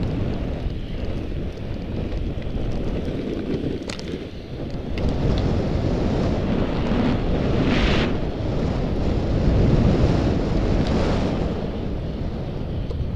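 Wind rushing over an action camera's microphone while skiing downhill, with skis hissing over packed snow; a brief louder scrape of the skis about eight seconds in, and a weaker one around eleven.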